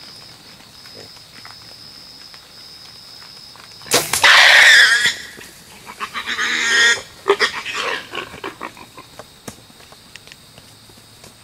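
A wild hog, just hit by an arrow, squealing loudly: a sharp crack about four seconds in, a shrill squeal of about a second, a second squeal a couple of seconds later, then scattered rustling and crackling as the hog thrashes and flops about in the brush.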